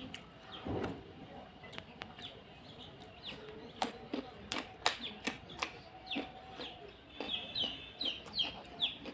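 Close-up wet mouth clicks and smacks of someone eating rice and curry by hand. Near the end a bird joins in with a quick run of short, high, falling chirps, several a second.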